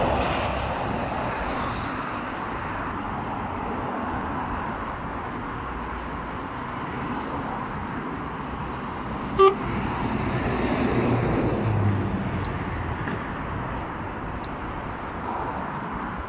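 Heavy lorries and cars driving past on a busy road: a steady traffic noise with engines swelling and fading as they pass. A brief horn toot about nine seconds in is the loudest sound.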